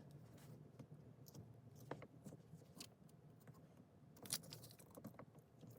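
Near silence broken by a few faint clicks and scrapes of small plastic pry tools working at the edge of the gear shifter's front plate, about two seconds in and again near the end.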